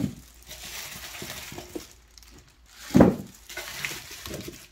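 Gloved hands dropping chunks of salted radish into a plastic storage container, with light knocks and handling noise between them. There is a soft thud at the start and a louder one about three seconds in.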